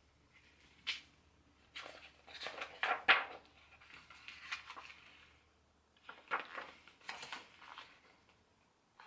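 A hardcover picture book being opened and its pages turned: irregular rustling of paper and knocks of the stiff board covers, loudest about three seconds in.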